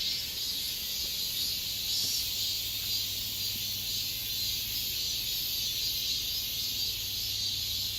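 Cicadas buzzing: a steady, high-pitched drone that holds without a break.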